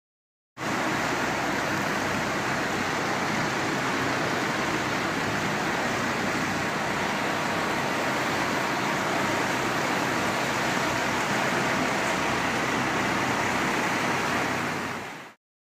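Steady rushing noise of a ride in a boat along a canal: water and wind on the microphone, with a low hum under it. It starts abruptly and fades out near the end.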